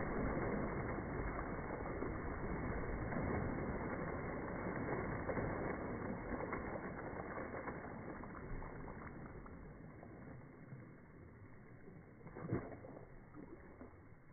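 Pool water splashing and churning from a dog's leap and paddling, settling gradually as the dog swims off. A short knock sounds near the end.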